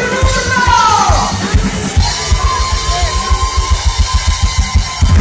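Live band music played loud through a PA, a dance-pop number with a pounding kick drum whose hits come faster and faster into a drum build-up in the second half, a voice gliding over the top.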